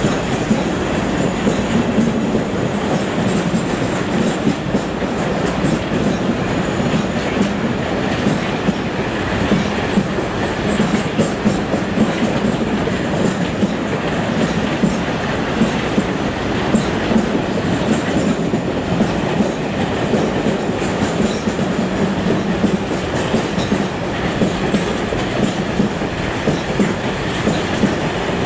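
A long rake of covered car-carrier freight wagons rolling past close by at speed: a steady, loud rumble of wheels on the rails with a rapid run of clicks as the wheels cross rail joints.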